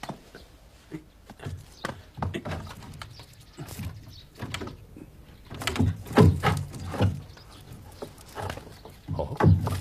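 Wooden wall panel of a hidden cupboard knocked, pushed and rattled as it is worked open by hand: a run of irregular knocks and thumps, loudest about six seconds in and again near the end.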